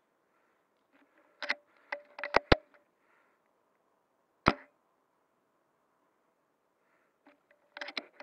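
Airsoft guns firing: sharp, separate snaps, a quick pair about two and a half seconds in, a single loud one halfway through and a cluster near the end, with softer clicks between.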